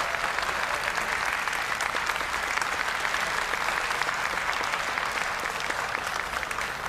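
Audience applauding: a dense, steady patter of many hands clapping that eases slightly near the end.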